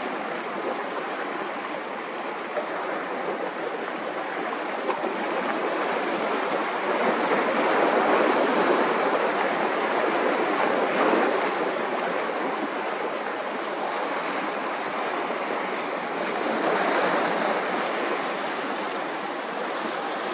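Waves washing on the shore in a steady rush, swelling louder twice: about a third of the way in and again near the end.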